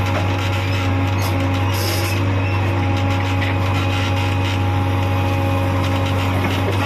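JCB backhoe loader's diesel engine running steadily under load while the hydraulic arm lifts and swings a bucket of earth.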